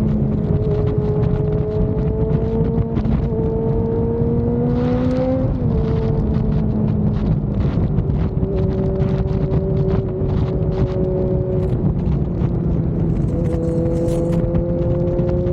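Kawasaki Z900 inline-four engine and exhaust pulling steadily under way, its pitch slowly rising. The pitch drops sharply about five seconds in and again near the end for upshifts. Heavy wind rush sits under it.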